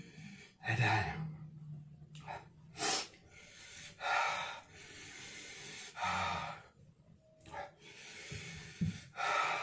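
A man breathing hard through an open mouth, several heavy sighing exhales and gasps a second or two apart, from the burn of ghost pepper noodles.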